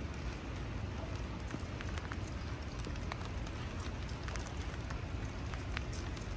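Steady rain falling on a hard surface, with many single drops ticking sharply over a constant low rumble.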